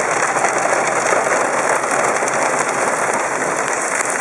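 Hail and ice pellets pelting the truck in a dense, steady patter.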